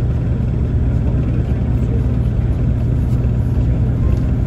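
Mercedes-Benz 814 D minibus under way, heard from inside the passenger cabin: its OM904 LA four-cylinder turbodiesel runs at a steady pace with a low drone, along with road noise.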